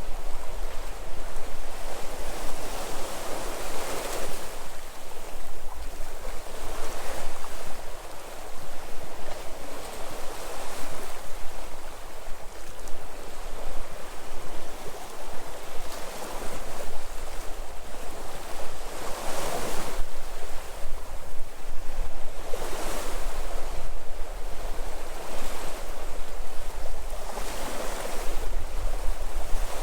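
Sea waves breaking and washing on the shore, a surge every few seconds over a steady wash of surf, with some low wind rumble on the microphone.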